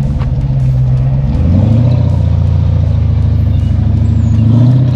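Rock-crawler buggy's engine running under load as it crawls over rocks. Its pitch rises about a second and a half in and then holds fairly steady, with a small further rise near the end.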